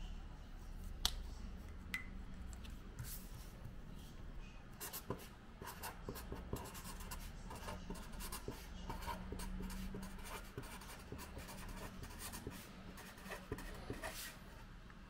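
Black felt-tip marker writing on a sheet of paper on a tabletop: a long run of faint, short scratching strokes.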